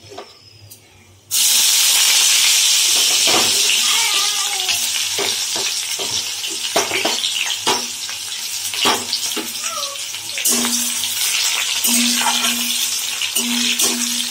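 Sliced raw onions dropped into hot refined oil in a kadai: a loud frying sizzle starts suddenly about a second in and keeps going, with a metal spatula scraping and knocking against the pan as the onions are stirred.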